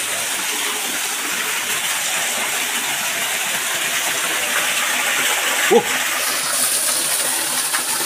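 Steady rushing and splashing of a small waterfall, water pouring over rock. A short vocal sound comes about three-quarters of the way through.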